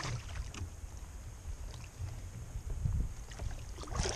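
Wind rumbling on the microphone over faint water noise, with one sharp click at the very start.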